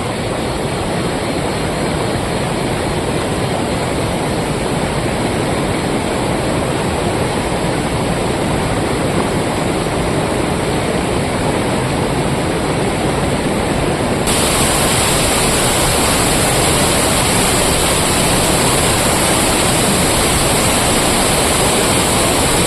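Steady rushing of fast-flowing water, loud and even, turning suddenly brighter and hissier about fourteen seconds in.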